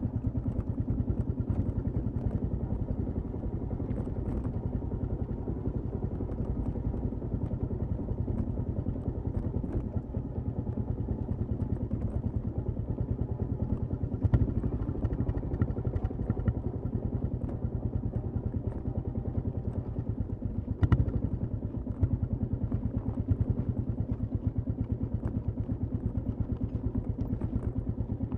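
Royal Enfield Classic 350's single-cylinder engine running steadily under way, its exhaust pulsing evenly. A couple of sharp knocks come about halfway through and again about three-quarters of the way through.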